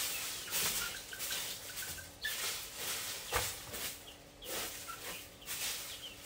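Faint, short, high bird chirps repeated every so often, over several bursts of rustling, scratching noise.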